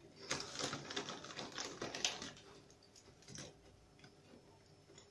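A light, airy puffed crisp being crunched in the mouth: a run of quick crackly clicks for about two seconds, then a few more about three and a half seconds in.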